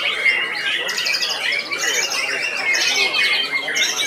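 White-rumped shamas (murai batu) singing over one another, a dense, continuous tangle of sharp whistles and fast rattling trills.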